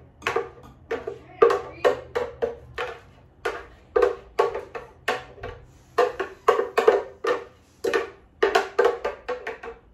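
Rapid, uneven hollow knocks, about three a second, as a blender jar is tapped and shaken to get thick, guacamole-like jalapeño salsa out into a glass bowl.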